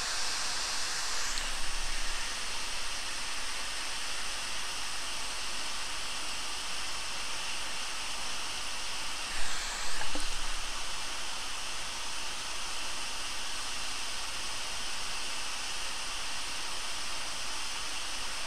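Hot air rework station blowing a steady hiss of air through its nozzle, reflowing solder on a small surface-mount fuse being fitted to a PS4 motherboard. The hiss shifts in tone a couple of times, with a short knock about halfway through.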